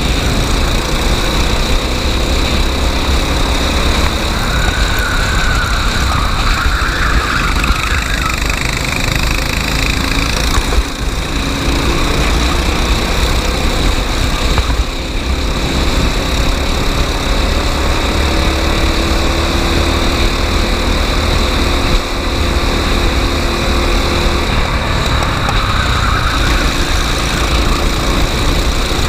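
Racing kart engine running continuously at speed, with faint rises and falls in pitch as the throttle changes.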